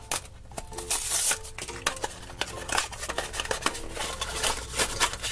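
Small cardboard box being torn open by hand: crackling and rustling of cardboard, with a brief louder tearing hiss about a second in, and scattered clicks as the box is handled.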